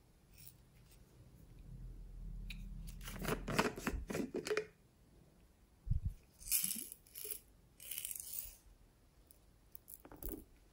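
Plastic slime containers being handled and opened: a run of clicks and crackles, a dull knock about six seconds in, then several short scraping, rustling bursts and a few clicks near the end.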